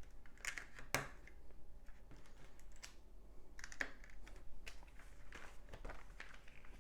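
Plastic LEGO bricks clicking and tapping at irregular intervals as they are handled and pressed into place, with one sharper click about a second in.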